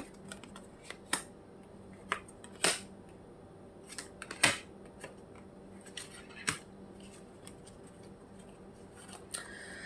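Tarot cards being handled and pulled from the deck: scattered sharp clicks and snaps, four of them louder than the rest, spread irregularly.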